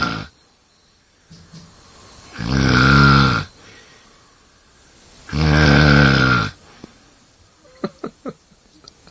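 A person snoring in deep sleep: one snore ends just as it begins, then two long, loud snores about three seconds apart, each lasting about a second, with quieter breathing between them. A few faint clicks come near the end.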